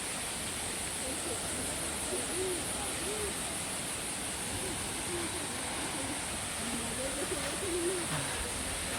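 Steady rush of flowing water, with a high hiss running above it. A few faint, low rising-and-falling tones come and go about two seconds in and again over the later part.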